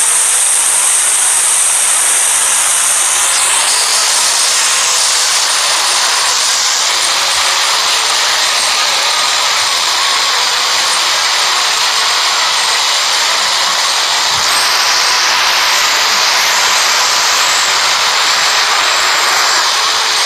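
Loud, steady rushing hiss with no clear pitch, its brightest top end easing off a few seconds in.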